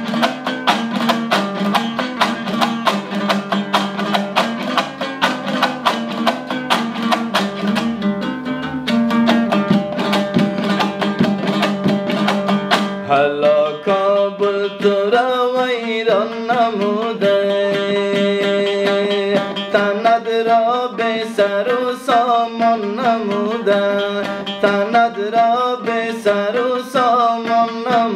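Afghan dambura strummed fast in a steady rhythm over its low drone string. About thirteen seconds in, a man's voice comes in, singing a sad song over the strumming.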